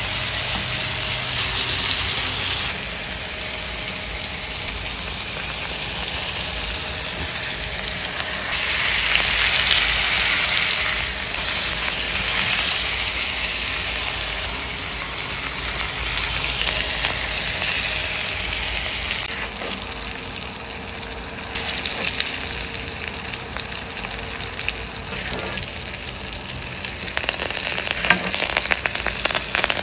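Tomahawk steak searing in a hot pan of foaming butter and thyme: a steady sizzle that gets louder about eight seconds in, with sharper crackling spatters near the end.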